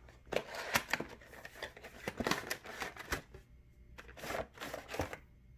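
Cardboard model-train box being opened by hand: irregular rustling, scraping and light taps of card and its plastic packaging, with a couple of short pauses.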